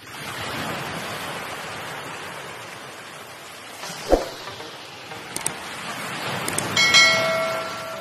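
Subscribe-button animation sound effects over a steady rushing noise: a pop about four seconds in, a couple of quick clicks, then a bell-like notification ding near the end that rings on and fades.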